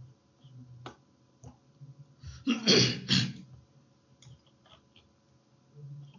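A person sneezes once, loudly, in two quick parts about two and a half seconds in. A few faint clicks come before and after.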